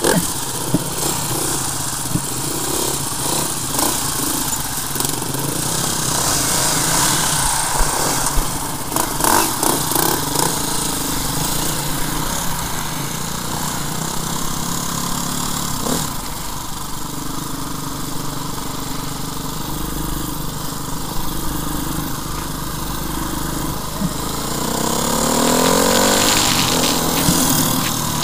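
Enduro dirt bike engine running close by, mostly at a steady low speed with some short knocks, then revving up with a rising pitch about 25 seconds in as the bike accelerates.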